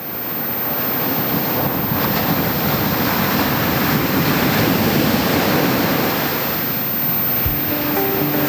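Ocean surf washing and breaking on a sandy beach in a steady roar of water. Near the end, background music with a low beat comes in over it.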